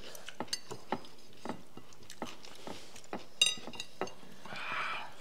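Quiet eating sounds at a table: soft clicks and taps of fingers and food against a ceramic plate, with one short ringing clink about three and a half seconds in.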